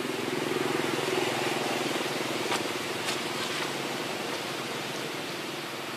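A small engine running steadily at a distance, a low hum with a fast even pulse, with two short clicks about two and a half and three seconds in.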